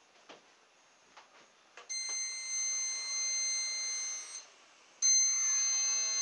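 Small brushed Hubsan H107-type quadcopter motor driving a 75 mm two-blade propeller, running with a high, steady whine. It starts about two seconds in, cuts out a little after four seconds, and starts again a second later, rising in pitch as it spins up.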